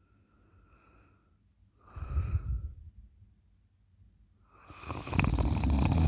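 A person snoring: two snores, a shorter one about two seconds in and a longer, louder one near the end.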